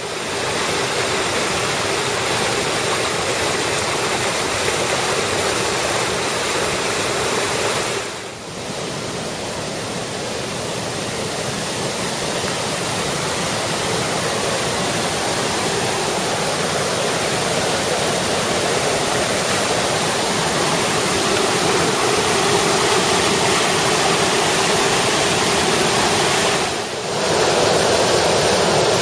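Flood-swollen creek in spate after heavy rain, its muddy whitewater rushing over rocky rapids in a loud, steady rush. The level dips briefly twice, about eight seconds in and near the end.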